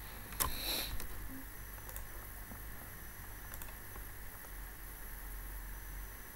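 Faint computer mouse clicks over steady microphone hum and hiss, with a short breathy noise about half a second in.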